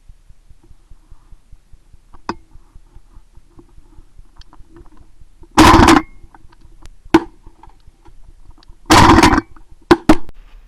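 Shotgun shots: a loud shot about halfway through, a shorter one a second and a half later, another loud shot near nine seconds in, and a quick pair just before the end.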